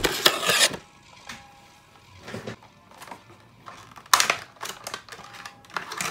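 Clear plastic blister packaging crinkling and crackling as it is handled and pried open. A loud crackle at the very start, scattered small clicks, then sharp cracks about four seconds in and again near the end.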